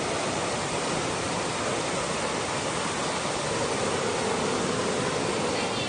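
Floodwater rushing down a street in a fast, steady torrent, an even, unbroken sound of moving water.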